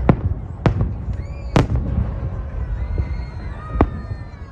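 Aerial fireworks of a holiday salute bursting overhead: four sharp bangs with echoing tails, the loudest about a second and a half in, over a steady low rumble.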